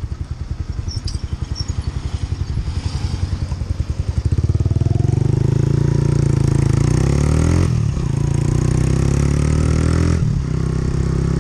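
Direct Bikes Storm 125 motorcycle engine through a Black Widow aftermarket exhaust with its baffle in. It runs at low revs with each exhaust pulse distinct, then accelerates about four seconds in, rising in pitch and getting louder. Near eight and ten seconds in it breaks briefly and drops in pitch as it shifts up.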